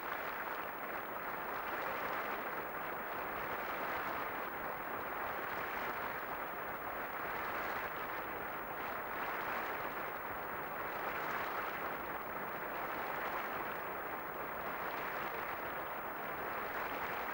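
Studio theatre audience applauding: dense, steady clapping that holds at an even level throughout.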